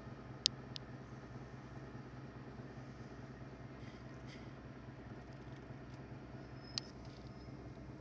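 Steady low electrical hum of room equipment, with a few faint clicks of handling and two sharper clicks, one about half a second in and one near the end with a brief high beep.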